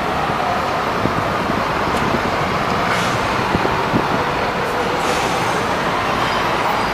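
Steady din of road traffic and bus engines, with a few faint ticks.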